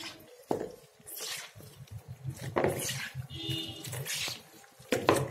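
Gloved hands mixing raw chicken pieces in a wet soy-sauce and spice marinade in a plastic bowl: irregular wet swishes and rubbing, a few to a second.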